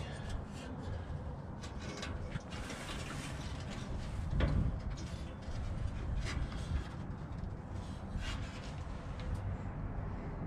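Irregular clicks, scrapes and rattles of metal gas-grill parts being handled as a burner is worked loose, with a slightly louder knock about four and a half seconds in.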